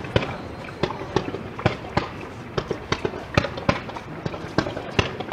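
Fireworks starmine, a rapid-fire barrage of shells, bursting in a dense, uneven run of sharp bangs, about four a second.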